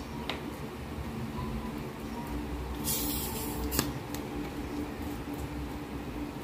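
Soft-drink bottle twisted open with a short fizzing hiss of escaping gas about three seconds in, ending with a sharp click. A faint steady hum runs underneath.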